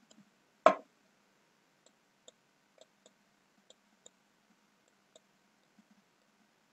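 Computer mouse buttons clicking during digital sculpting: one loud, sharp click under a second in, then about ten faint, sharp clicks at irregular intervals.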